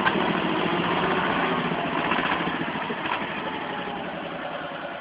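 Władimirec T-25 tractor's air-cooled two-cylinder diesel running with a steady clatter as the tractor drives through deep mud. It is loudest about one to two seconds in, then fades gradually as the tractor pulls away.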